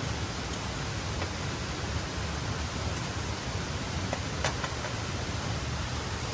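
Steady hiss of heavily falling water, even and unbroken, with a few faint sharp ticks about four seconds in.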